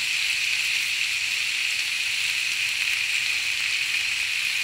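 Chicken pieces and sliced onions sizzling steadily in a hot frying pan, with chopped tomatoes just added.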